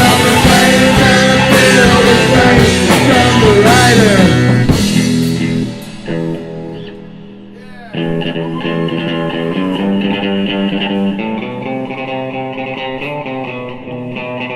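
Rock band music led by electric guitar: a loud full-band passage with bending guitar lines breaks off about six seconds in to a fading ring, then a quieter guitar-led passage of sustained notes takes over.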